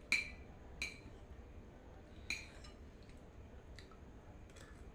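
Metal spoon or fork clinking against a dish while eating noodles: three sharp clinks in the first two and a half seconds, then a few fainter taps near the end.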